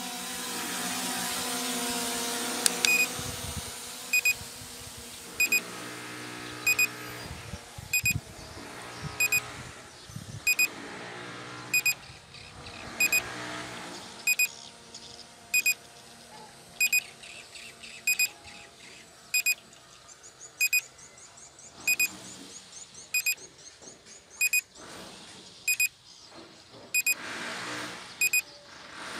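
A short, high electronic warning beep repeats evenly about every 1.3 seconds, over steady background noise.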